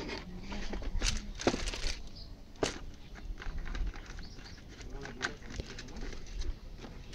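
Cardboard packaging being handled on a wooden bench: irregular rustling and scraping with a few sharp taps, the loudest about a second and a half in and near the three-second mark.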